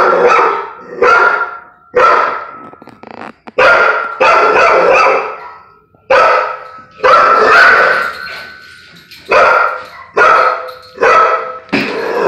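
Pit bull barking over and over at a balloon, a string of loud, separate barks about one every half-second to a second, with short pauses between runs.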